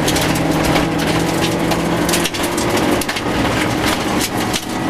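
Rover 214 rally car's engine pulling hard on a gravel stage, heard from inside the cabin, with stones and gravel crackling against the underbody and wheel arches. The engine note changes a little over two seconds in.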